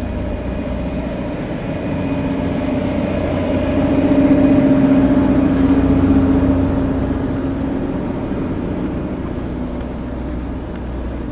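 A large engine running steadily with a droning hum, growing louder about four seconds in and easing off again after about six and a half seconds.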